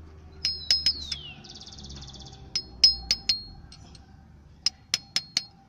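Light metal taps seating a new crankshaft oil seal fully into the engine's front cover, in three quick bursts of about four taps each, every tap ringing briefly.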